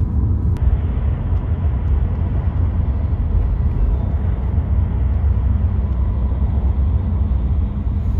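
Steady road and engine rumble inside a car's cabin at highway speed. The noise turns a little brighter less than a second in.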